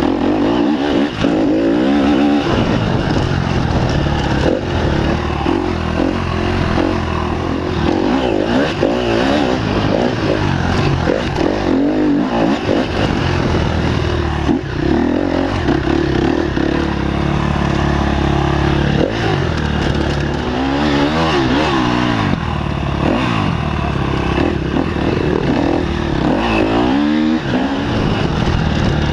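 Off-road dirt bike engine running hard under race load, heard from on board, its pitch climbing and dropping again and again as the rider works the throttle and gears. Several rising revs stand out about two-thirds of the way through and near the end.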